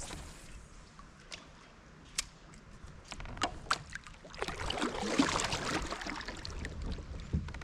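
Water sloshing and splashing around a kayak, loudest about halfway through, after a few sharp clicks and knocks.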